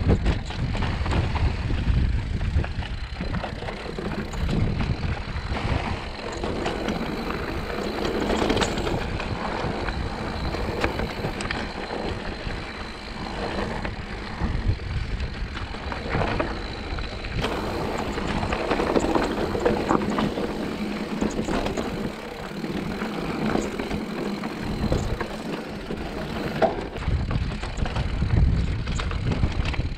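Mountain bike rolling over rocky dirt singletrack: steady tyre noise with scattered clicks and rattles from the bumps, and wind rumbling on the camera microphone.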